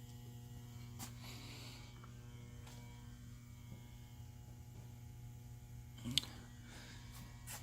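Steady low electrical hum, with a few faint clicks and a sharper knock about six seconds in.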